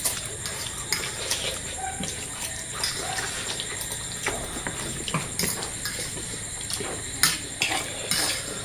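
Forks and spoons clinking and scraping on plates as people eat chow mein, in short irregular clicks.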